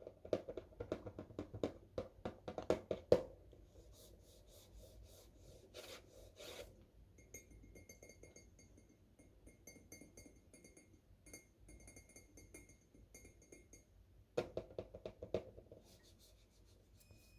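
Faint rubbing and scratching of small things being handled, with clusters of quick light taps in the first few seconds and again near the end.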